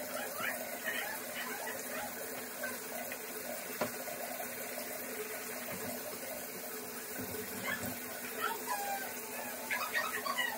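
Toothbrush scrubbing a white canvas sneaker with baking soda: a scratchy rubbing with short, high squeaks, most of them near the end, over a steady low hum.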